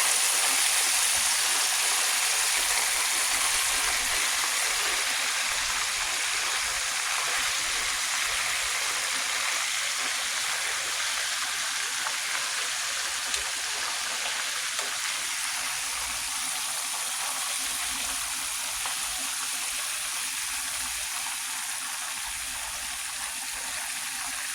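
Breaded chicken wings frying in a pan of hot oil: a steady, dense sizzle with faint crackles, slowly getting a little quieter.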